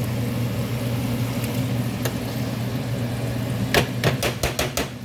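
Steady low hum of kitchen equipment. Near the end comes a quick run of about eight sharp metal clacks as the fry basket is lifted out and knocked to drain the oil.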